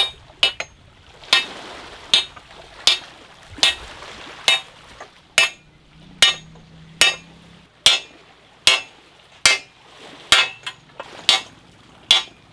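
Steady hammering on metal, a sharp ringing clank about every 0.8 seconds, with the ring of struck metal pipe.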